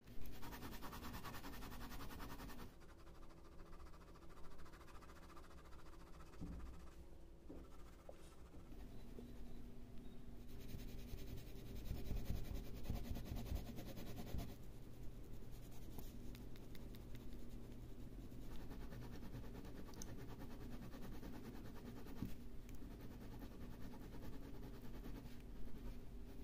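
Bic ballpoint pen (1.6 mm Bic Large) scratching rapidly across paper in quick back-and-forth hatching strokes, with a few quieter stretches between bouts.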